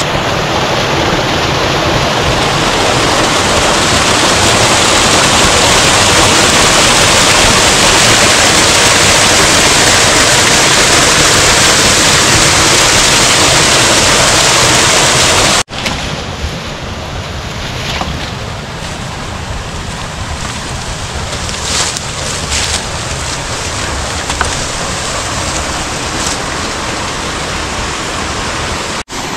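Steady rush of flowing water, loud for the first half; a little past halfway it cuts off abruptly and resumes quieter, with a few faint clicks, and cuts briefly again near the end.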